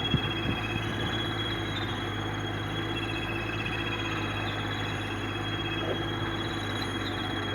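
A motor running steadily: a constant low hum with a thin high whine, and a faint knock just after the start.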